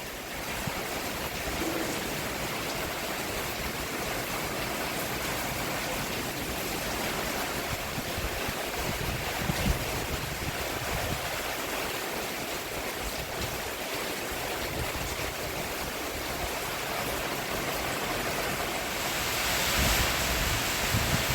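Rain falling steadily on a roof, an even hiss that swells a little louder near the end.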